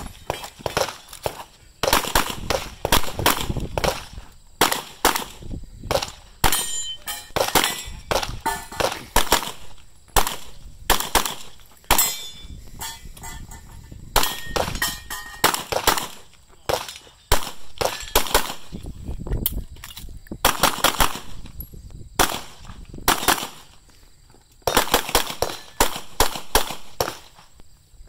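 Pistol fire: sharp shots in quick pairs and short rapid strings, with brief pauses of a second or two between strings.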